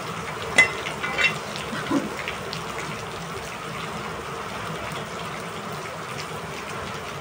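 Steady rain falling, an even hiss, with a few short sharp sounds in the first two seconds.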